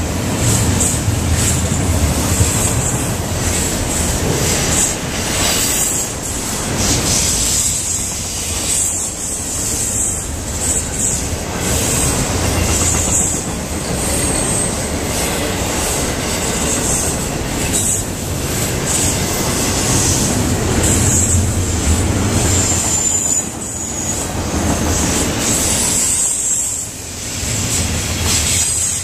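Double-stack intermodal freight train rolling past continuously: a steady rumble of steel wheels on rail that swells and eases every few seconds as the cars go by, with a thin high-pitched wheel squeal on the curving track.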